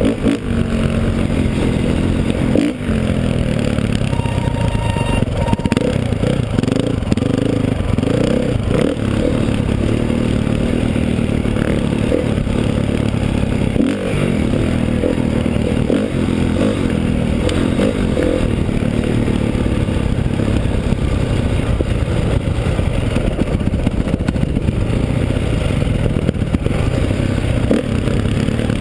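Dirt bike engine running under load on a rough trail, its pitch rising and falling as the throttle opens and closes, with rattling from the bike over the rough ground.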